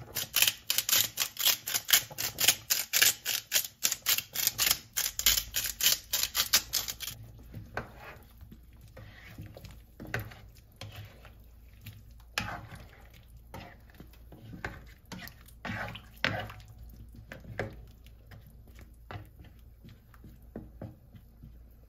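Hand-twisted salt grinder working over the pan, a fast, even run of dry grinding clicks that stops about seven seconds in. After that a spoon stirs chicken and vegetables in broth in a nonstick pan, with scattered soft knocks and scrapes.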